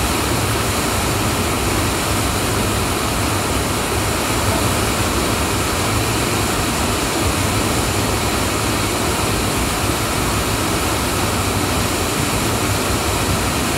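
Steady rush of whitewater from a large river's standing wave and rapids running at high flow, loud and unbroken.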